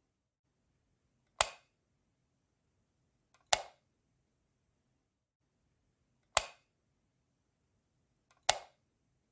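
A light switch clicking four times at uneven intervals of two to three seconds, each a sharp snap with a short tail, two of them with a faint tick just before. The switch is turning an incandescent bulb on and off.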